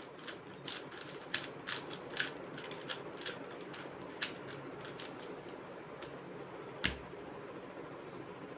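Irregular sharp plastic clicks of a MoYu Weilong GTS3M 3x3 speed cube being handled and turned, close together in the first half and sparse later. One dull thump comes about seven seconds in.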